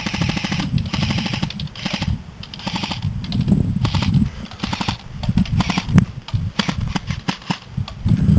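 Airsoft rifles firing full-auto in many short, rapid bursts of clicking shots, one burst after another.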